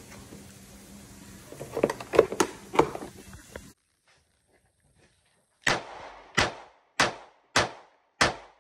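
A few handling clicks and knocks from the pistol and its plastic case, then a Glock 19C Gen 3 9mm pistol with a factory-ported compensated barrel fired in rapid succession: five loud shots about 0.6 s apart in the second half, continuing steadily.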